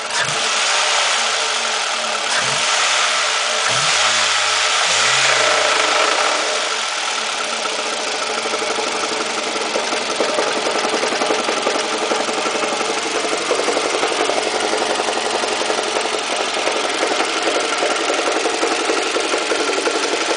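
Toyota 2AZ-FE 2.4-litre four-cylinder engine revved in several short blips, then settling to idle with a fast, even knocking, which the owner places near the starter.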